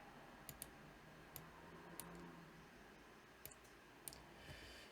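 Faint computer mouse clicks, about six spread unevenly over a few seconds, against near-silent room tone.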